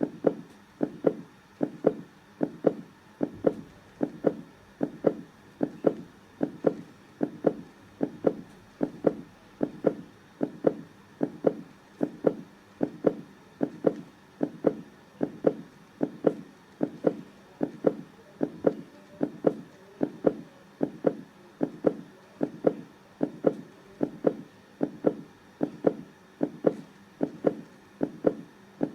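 Heartbeat sound: a steady, even rhythm of low double thumps (lub-dub), a little faster than one beat a second.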